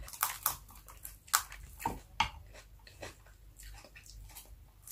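Close-miked eating sounds: chewing and mouth smacks from a person eating fried milkfish and rice by hand, heard as a series of short sharp clicks at irregular intervals, the loudest about a second and a half in.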